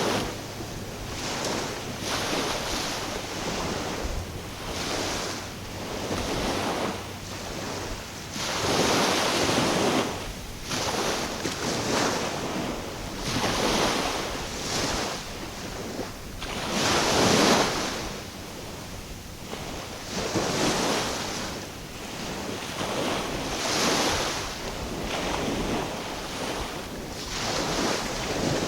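Small waves washing in and out against the shore, one swell of hiss every couple of seconds, with the largest about halfway through. Wind buffets the microphone.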